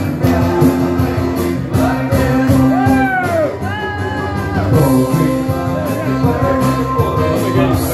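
Loud music with a singer, the voice sliding up and down in pitch over the backing about halfway through.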